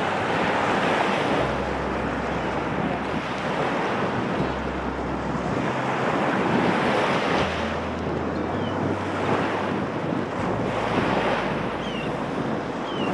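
Small waves breaking on a sandy Baltic shore, the wash swelling and falling every two to three seconds, with wind rumbling on the microphone.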